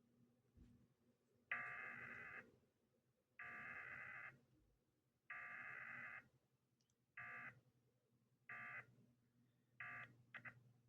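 Emergency Alert System SAME digital data bursts, a harsh electronic screech. Three bursts about a second long, roughly two seconds apart, are the message header. They are followed by three short bursts about a second and a half apart, the end-of-message signal.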